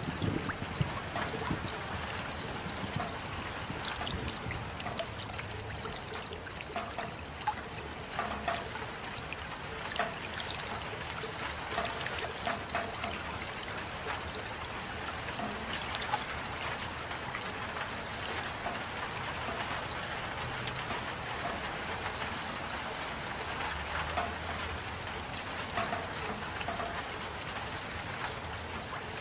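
Steady rain falling, with many separate drops ticking through the even hiss.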